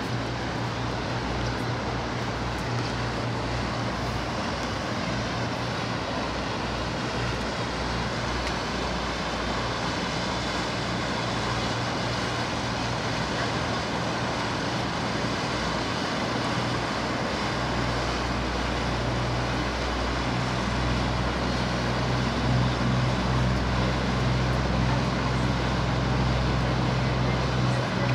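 Steady drone of an airplane passing overhead, with a low engine hum from a passing river boat that grows louder about two-thirds of the way in.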